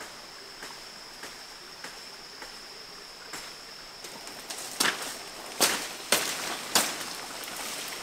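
Footsteps on dry leaf litter and twigs: four or five sharp crackles about halfway through, over the steady hiss of a shallow creek and a thin, steady high tone.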